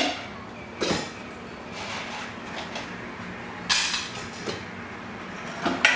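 Bowls and containers clattering and being set down on a counter as dog food is dished out: a few short, sharp knocks spread over several seconds.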